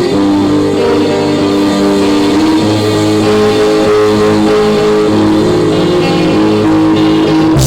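Music with sustained guitar notes, in a rock style.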